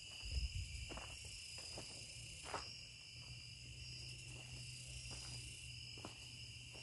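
Faint, steady chorus of night insects, crickets trilling without a break at a high pitch. A low bump about half a second in and a few faint clicks sit under it.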